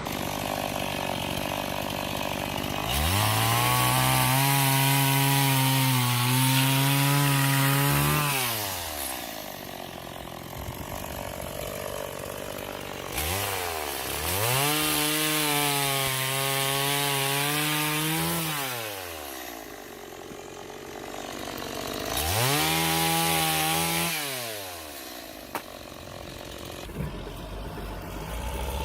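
Chainsaw revved up to full speed three times. The first two spells are held for about five seconds each, the last is shorter, and the pitch wavers slightly while held before dropping back.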